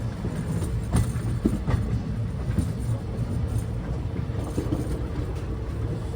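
Train on the rails, a steady low rumble with scattered light clicks from the wheels and cars.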